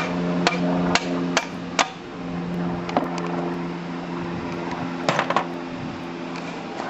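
Hammer tapping a small metal pin down into a lawn tractor's transaxle case: five sharp metal strikes about half a second apart, then a few scattered knocks and clinks about three and five seconds in. A steady hum runs underneath.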